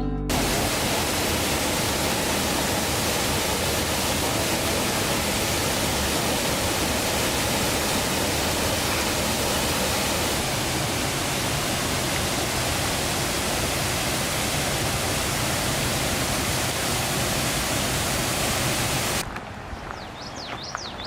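Spearfish Falls pouring: a loud, steady rush of falling water. It cuts off suddenly about nineteen seconds in, leaving a few bird chirps.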